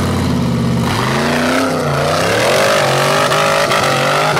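Rock bouncer buggy's LS V8 engine revving hard at full throttle as it launches up a steep muddy hill. The revs jump sharply about a second in, then rise and fall as the tyres bite and spin.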